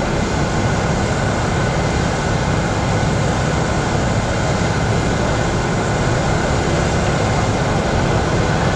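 Steady, loud rushing noise with no distinct events and no change in level.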